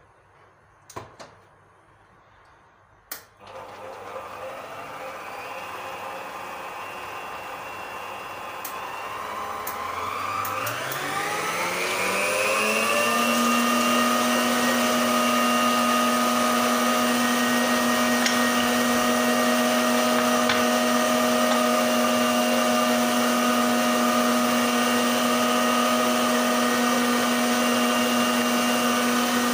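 Emsan stand mixer whisking egg whites in a stainless steel bowl. A couple of sharp clicks come first, then the motor starts faintly. Its whine rises in pitch over a few seconds and holds a steady high-speed whine from about halfway.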